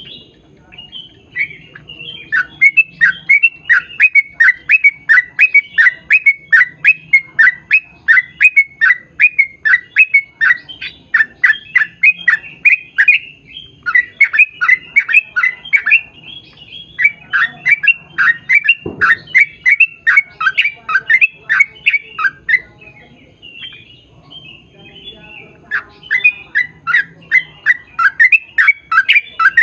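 Yellow-vented bulbul (trucukan) singing long rapid runs of short chattering notes, about four a second, broken by a few brief pauses.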